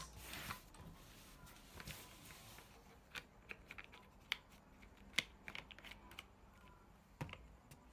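Scattered soft clicks and taps, irregular and a few a second, from a baby monkey being held and squirming on a lap; a short rustle comes at the start.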